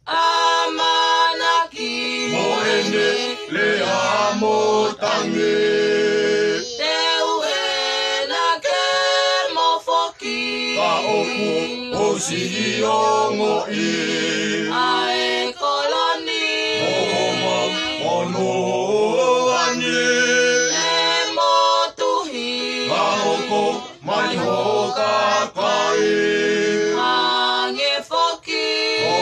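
A family group of men's and women's voices singing together in several parts, with long held notes.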